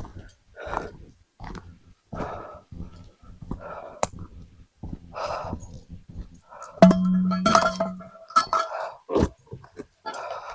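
Footsteps crunching through woodland brush, about one step a second. A louder ringing, clinking sound is heard for about a second roughly two-thirds of the way in.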